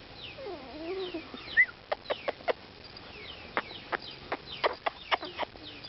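Many short, high calls falling in pitch, from a young animal, repeating throughout, with a scattered series of sharp clicks in the middle and latter part.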